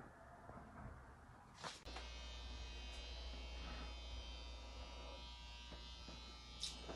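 A click, then a steady electric buzz starts about two seconds in, like a small motor or appliance switching on and running. A few more clicks come near the end.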